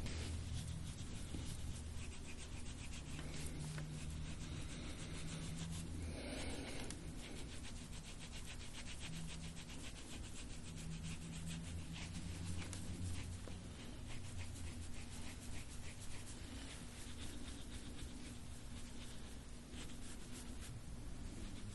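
Soft-tissue scraping tool rubbed over a patient's skin in rapid, repeated short strokes, a continuous dry rubbing and scratching with a denser stroke about six seconds in. A steady low hum runs underneath.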